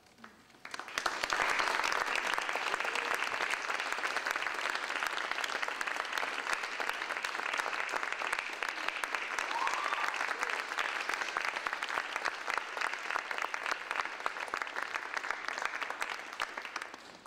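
Audience applauding, breaking out about a second in, holding steady, then thinning out near the end.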